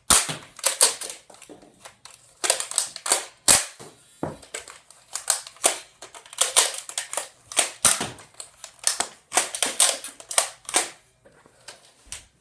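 Nerf Zombie Strike Flipfury dart blaster being primed and fired again and again: a rapid run of sharp plastic clacks and snaps in quick groups, with short pauses between the groups.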